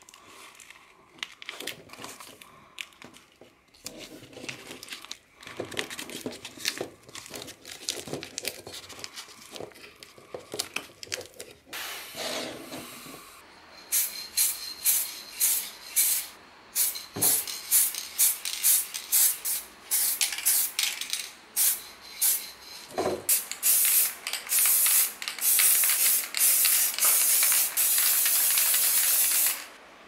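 Masking tape being wrapped around a fan's cables, crinkling and tearing, for about the first half. Then an aerosol spray-paint can spraying in a run of short bursts, ending in one long steady spray that cuts off suddenly.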